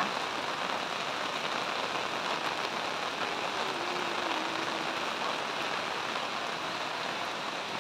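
Heavy rain falling steadily on foliage, an even hiss with no let-up.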